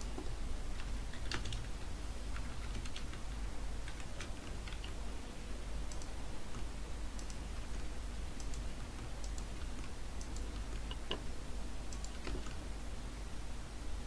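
Typing on a computer keyboard: irregular key clicks, one sharper click about eleven seconds in, over a steady low hum.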